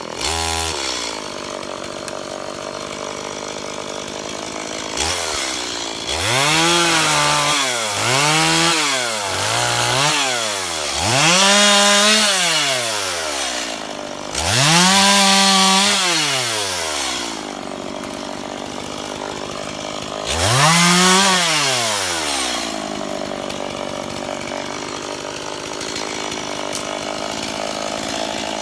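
Two-stroke chainsaw running, revved up in a series of bursts (about six between roughly five and twenty-two seconds in, another at the end), each time climbing to full speed, holding briefly and dropping back to a lower running speed.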